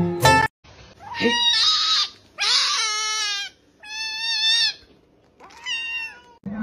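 A kitten meowing loudly, four drawn-out meows about a second apart.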